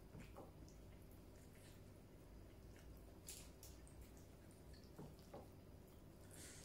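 Faint wet clicks and smacks of eating by hand: quiet chewing and lip sounds while fingers mix rice, scattered irregularly over a low steady room hum.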